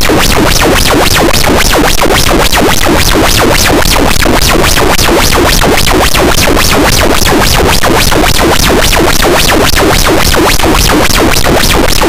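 Harsh noise wall: a loud, unbroken wall of dense distorted noise that fills the whole range from deep rumble to high hiss, with a fast, even pulsing running through it and no pauses.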